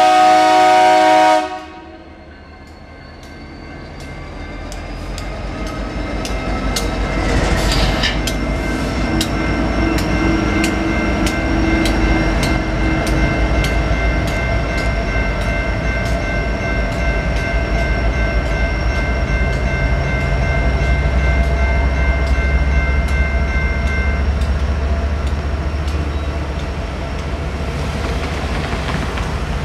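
A diesel locomotive's air horn blowing a chord, the loudest sound, cutting off about a second and a half in. After it, a General Signals Type-2 electronic crossing bell rings in steady, even strokes over a low rumble, the bell stopping near the end as the gates rise.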